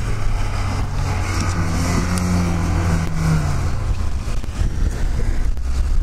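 Lada Niva 4x4 engine pulling hard through deep snow: the revs climb for a couple of seconds, then drop back.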